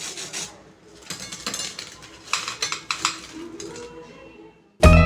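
Kitchen utensils scraping and clinking against dishes in a series of short strokes. Loud music with a drum beat starts just before the end.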